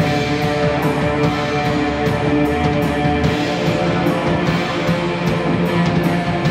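Live heavy rock band playing: distorted electric guitar from a black Les Paul-style guitar over bass guitar and drums. Cymbals are struck in a steady beat, about three times a second.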